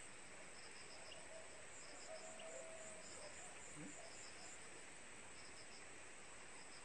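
Faint insects chirping: short pulsed chirps in groups of a few pulses, repeating irregularly over a steady high-pitched buzz.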